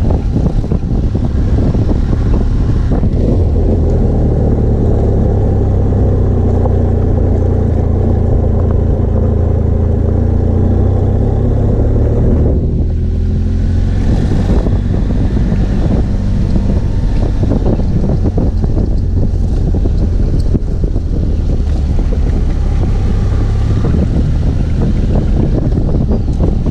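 BMW F 800 GS Adventure's parallel-twin engine running as the motorcycle is ridden, with wind buffeting the microphone. The engine note holds steady, then drops off briefly about halfway through before continuing.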